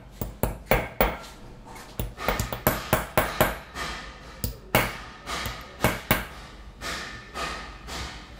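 Small hammer striking a steel chasing punch held on an embossed silver cane cap: a run of sharp metallic taps, two or three a second at an uneven pace, each with a brief ring.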